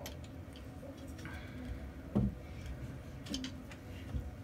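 Light clicks and small knocks of plastic camera accessories being handled and fitted onto a GoPro rig, with a louder knock about two seconds in.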